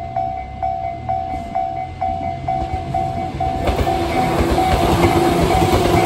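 Tobu railway level-crossing alarm bell of the Tojo-line type, ringing a repeating electronic ding about twice a second. About three and a half seconds in, an electric train begins passing over the crossing and its running noise rises over the bell.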